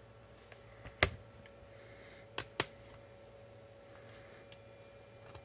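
Sharp clicks of small screws and a screwdriver being handled against a laptop's plastic case during disassembly. There is one loud click about a second in, a quick pair of clicks about a second and a half later, and a few faint ticks.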